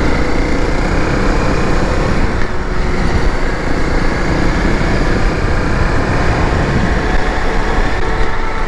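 Dual-sport motorcycle engine running steadily at cruising speed, with wind rushing over the microphone.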